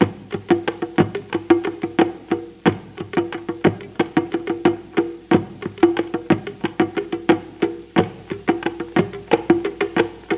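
Percussion played in a fast, uneven run of sharp strikes, about six a second, over a steady low ringing note.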